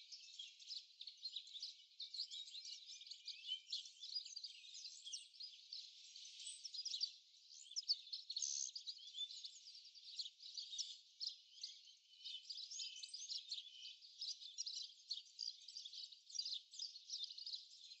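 Wild birds chirping and calling around a seed feeder: a steady scatter of short, high chirps, thin and faint.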